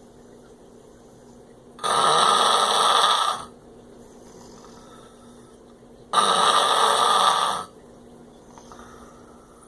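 A man snoring in his sleep: two long, loud snores, each about a second and a half, the first about two seconds in and the second about four seconds later, with quiet breathing between them.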